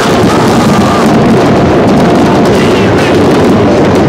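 Large fireworks display: aerial shells bursting in a continuous run of bangs and crackling, loud and unbroken, with a few thin whistling tones over it.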